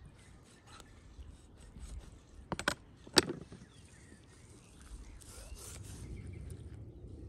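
Kitchen knife working a whole trout on a wooden board: light scrapes and small clicks, then sharp knocks of the knife on the wood about two and a half and three seconds in, the second the loudest.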